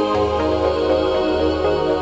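Background music: calm, new-age style synth chords held over a steady bass.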